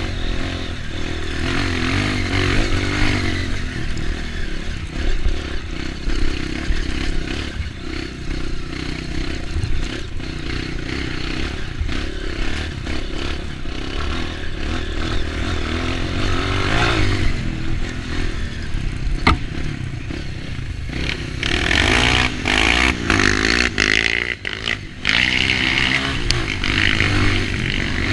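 Dirt bike engine running over an off-road trail, the revs rising and falling, with rattling and scraping from the bike over rough ground. The engine gets louder with harder revving in the last several seconds.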